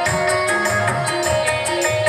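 Instrumental passage of Indian folk music: a held melody line over a quick, steady hand-drum and percussion beat.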